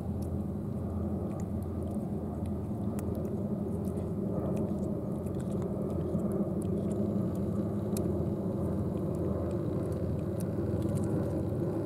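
A cat licking and chewing a liquid treat squeezed from a plastic tube, heard as faint scattered wet clicks of its tongue and mouth, over a steady low rumble.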